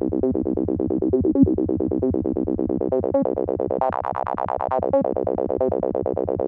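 Serum software synth playing a looping acid bassline in imitation of a Roland TB-303: a saw wave through a bandpass filter swept by an envelope, with the resonance turned up and no distortion yet. It is a fast, even run of short notes, and the tone turns brighter for about a second around four seconds in.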